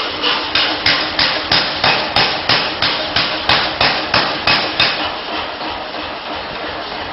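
Hammer blows on hot steel being forged, sharp and evenly spaced at about three a second, stopping about five seconds in. A steady machine noise carries on after.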